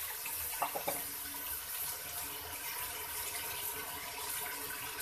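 Mutton, tomatoes and spices sizzling steadily in hot oil in an aluminium pressure cooker pot, with a few light knocks just under a second in.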